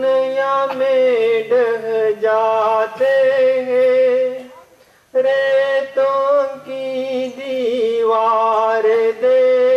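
A man singing a Hindi devotional bhajan in long, held, ornamented lines over steady sustained accompanying notes, with a short break about halfway through.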